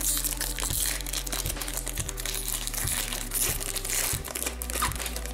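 Foil wrapper of a hockey card pack crinkling and crackling as it is handled and torn open by hand, in irregular bursts.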